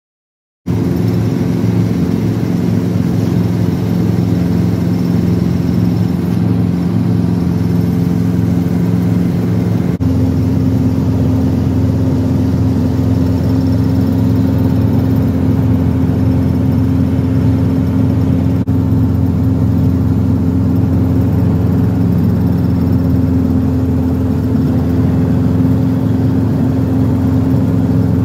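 Small two-seat piston helicopter's engine and rotor running with a steady drone, heard from inside the cabin. The sound cuts in suddenly just under a second in, and its pitch changes abruptly about ten seconds in.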